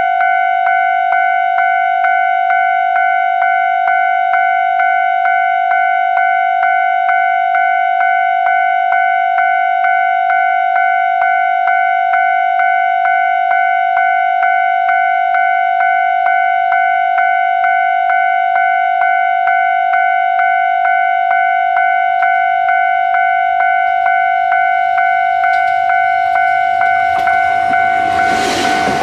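Japanese level-crossing warning bell ringing: one electronic tone struck over and over, about one and a half times a second. In the last few seconds a Fukui Railway 200 series electric railcar comes past close by, its running noise rising under the bell.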